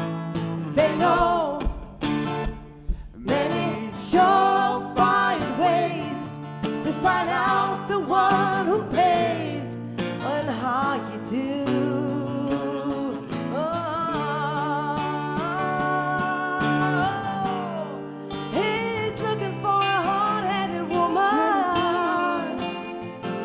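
Instrumental break of a folk-rock song: a lead melody with bending notes and vibrato over acoustic guitar and steady bass notes.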